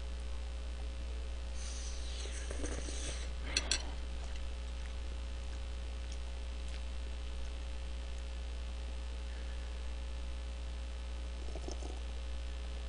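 Steady electrical hum under quiet eating sounds: a noodle slurp about two seconds in, followed by two sharp clicks.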